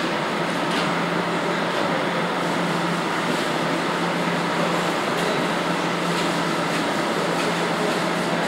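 Steady rushing air in a paint spray booth during spray-painting, over a constant low hum.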